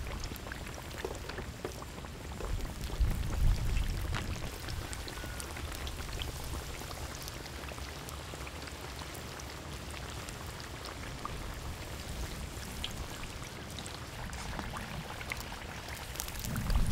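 Battered slices deep-frying in hot oil in a wide pan: a steady, dense crackle of many tiny pops. A brief low rumble comes about three seconds in.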